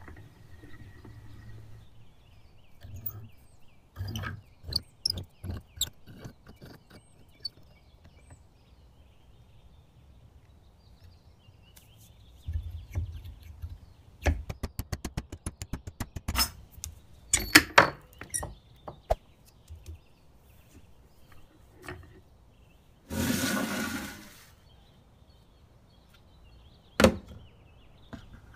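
Metal clicks, taps and knocks from handling and taking apart a rusty antique hand vise held in a small bench vise, including a run of quick rapid clicks partway through. Near the end there is a noisy burst lasting about a second, followed a few seconds later by one sharp knock.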